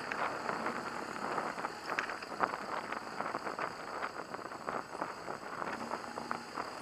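Riding noise from a BMW HP2 Enduro motorcycle on a rough dirt track: a steady rush with many irregular clicks and knocks from the bumpy surface.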